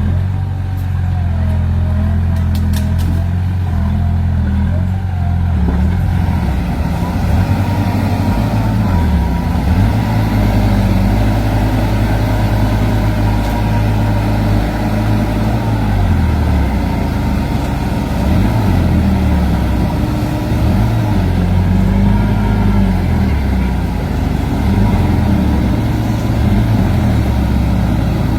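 Heavy diesel engines of earthmoving machinery working under load, the engine note repeatedly rising and falling as they rev up and ease off.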